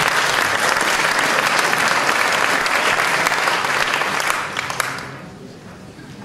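A large theatre audience applauding, the clapping dying away about five seconds in.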